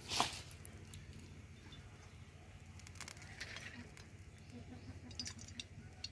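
A plastic bottle cap clicks open with one sharp click, then cooking oil is poured in a thin stream into an iron kadai, making a faint trickle with a few small ticks.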